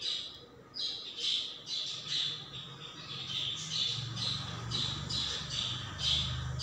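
Thinly cut, water-soaked radish deep-frying in hot oil: loud sizzling with pulses of spattering, two or three a second. It starts abruptly about a second in as the wet radish hits the oil.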